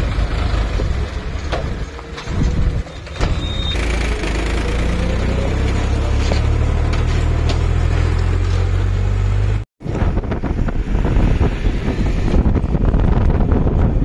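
Powertrac 434 DS tractor's three-cylinder diesel engine running under load as it hauls a trolley of sand past, the engine note climbing slowly for a few seconds.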